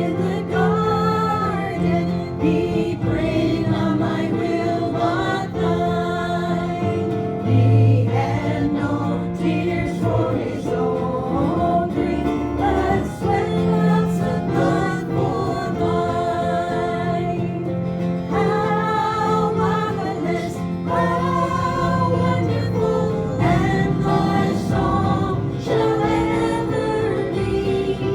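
Gospel hymn sung by a group of voices in phrases, with instrumental accompaniment carrying steady bass notes.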